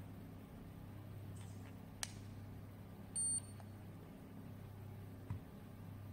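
Evebot handheld printer giving a single short high beep about three seconds in, the signal that its round top button has been held long enough. A sharp click comes about a second before it.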